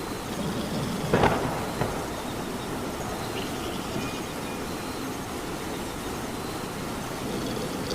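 Steady rain hiss, with a short louder sound about a second in and a smaller one just after.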